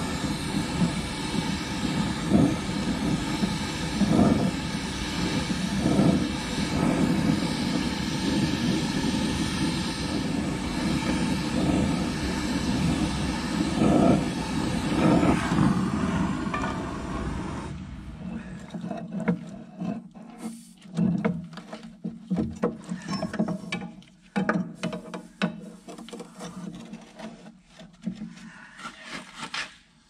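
Handheld gas torch flame burning with a steady roar while it heats a seized steel clevis pin, shut off abruptly about 18 seconds in. After that come scattered faint metal clinks and knocks.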